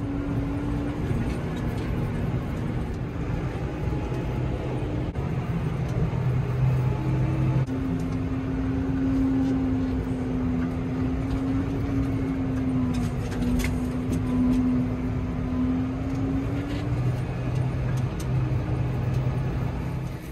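Tractor engine running steadily as it drives along, heard from inside the cab, its pitch shifting slightly a couple of times.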